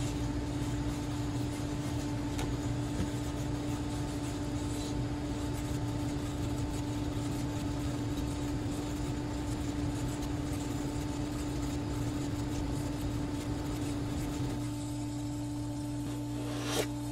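GBC HeatSeal H200 pouch laminator running with a steady hum as its rollers draw a laminating pouch through. The faint hiss over the hum thins out about fourteen seconds in, and there is a brief click near the end.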